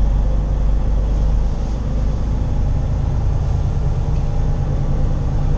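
Semi-truck's diesel engine running with a steady low drone, heard from inside the cab while the truck is driven.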